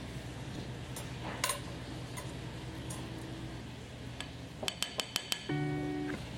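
Light clinks of glass and dishes over a steady low hum, with a quick run of sharp clinks near the end, followed by music starting.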